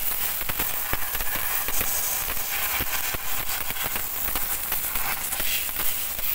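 High-pressure water jet from a pressure washer blasting a rusty rear drum brake assembly: a steady hiss of spray with crackling spatter off the metal, over a low rumble.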